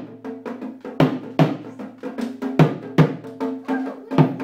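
Dhol, a two-headed barrel drum, beaten unevenly by a small child at about two to three strokes a second, each stroke ringing on with a steady pitch.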